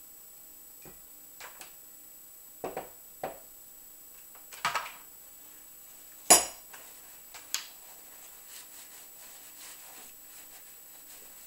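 Small metal and plastic paintball-marker parts clicking and knocking against each other and the tabletop as they are handled and set down: about a dozen separate knocks, the loudest about six seconds in, then only faint handling noises.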